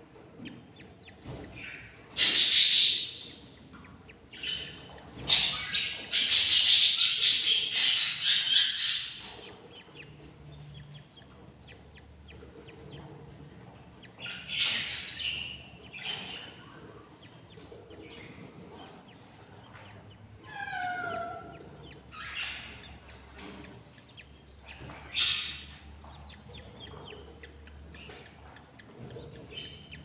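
Budgerigars chirping and squawking in short, scratchy bursts. The calls are loudest in two spells within the first ten seconds, with quieter calls after, including one falling call about two-thirds of the way through.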